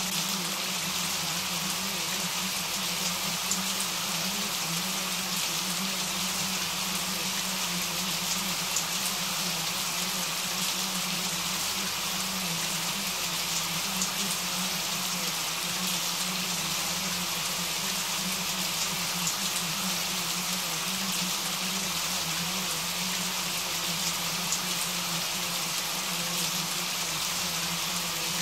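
Steady rain falling, an even dense patter of drops that keeps the same level throughout.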